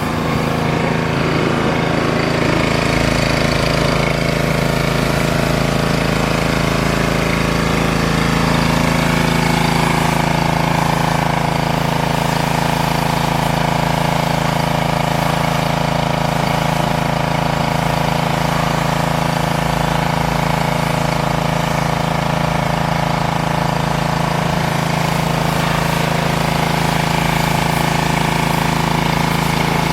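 Petrol-engine pressure washer running steadily at a constant pitch, with the steady hiss of its high-pressure water spray.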